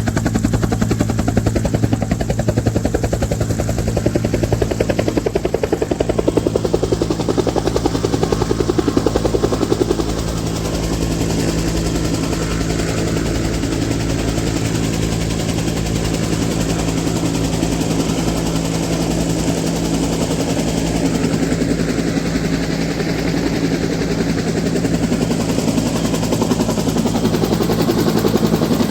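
Small engine running steadily to drive a water pump, with a rapid, even pulse. It drops a little in loudness about ten seconds in.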